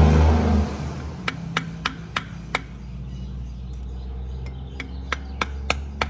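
A metal hand tool tapping sharply and prying at the plastic cap on a manual transmission case, about five taps in the first half and a quicker run of about six near the end. Under the first second a loud running motor fades out, leaving a faint low hum.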